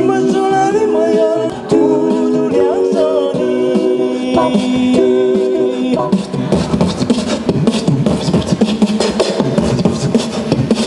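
Music: held, sung-sounding notes that change pitch every second or so, then about six seconds in a busier track with a quick steady beat takes over.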